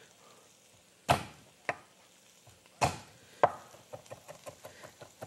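Chef's knife on a wooden cutting board crushing and chopping garlic. There are two solid knocks about one and three seconds in as the clove is crushed, then a run of quick light taps as the knife chops the crushed garlic.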